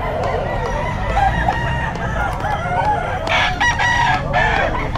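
Many roosters crowing and chickens clucking over one another, with a louder crow about three and a half seconds in.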